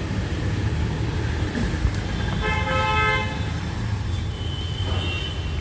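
A vehicle horn honks once, a steady note lasting about a second, about two and a half seconds in, over a steady low rumble of traffic.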